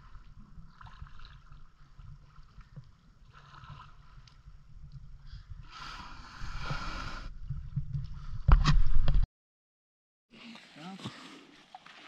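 A canoe being paddled into shore, with water swishing at the bow and wind rumbling on the microphone. About six seconds in, the hull runs up onto a sandy beach with a grinding scrape, and near nine seconds there is a loud knock before the sound cuts off suddenly.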